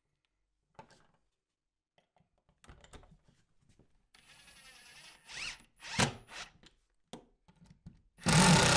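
A few faint clicks and rustles of handling, then about eight seconds in a Ryobi cordless drill-driver starts and runs steadily, driving a screw through a hidden shelf bracket into the wall.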